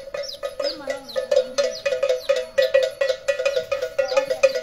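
Metal bell clanging in a quick, steady rhythm, the accompaniment of an Igbo masquerade as it approaches.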